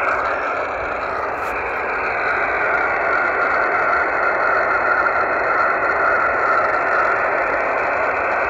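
Shortwave-style receiver audio from a 47 GHz microwave station: a steady hiss through a narrow voice-band filter, with the rain-scattered signal from the distant station heard as a rough, rushing tone rather than a clean note. The tone fades for a moment about a second in, then comes back stronger.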